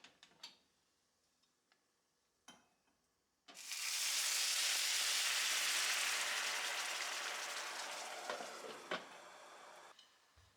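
A few light utensil knocks, then food hitting a hot, oiled pan: a sudden loud sizzle that starts about a third of the way in and slowly dies down over the next several seconds, with a couple of clicks near the end.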